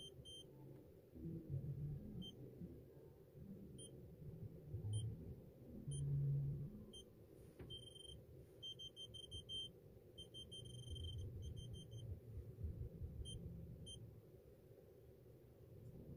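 Evernet digital door lock beeping: short high electronic beeps, single ones about a second apart, then quick runs of several beeps around the middle. Low rumbling handling noise sits underneath.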